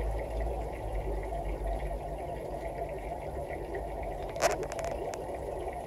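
Steady low hum and watery hiss of running aquarium equipment, such as a filter. About four and a half seconds in there is one sharp click, followed by a few fainter ticks.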